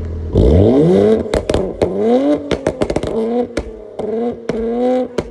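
Infiniti Q50's 3.0-litre twin-turbo VR30 V6 revving again and again, each rev rising in pitch, with many sharp pops and cracks from the exhaust throughout.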